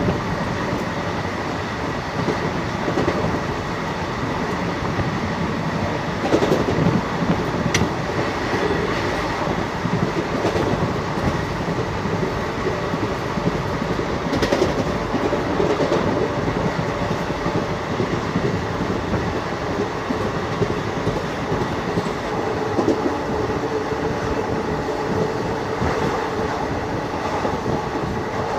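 Passenger train running at speed, heard from an open coach doorway: a steady rumble of wheels on the track, with a few sharp clacks now and then.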